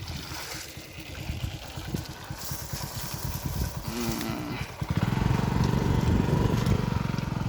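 A small engine running with a fast low chug, growing louder about five seconds in, with a short low pitched call about four seconds in.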